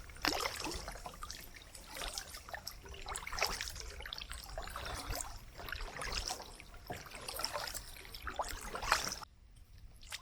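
Kayak paddle strokes: water trickling and dripping off the paddle blades in an irregular run of small splashes. The sound drops away abruptly about nine seconds in.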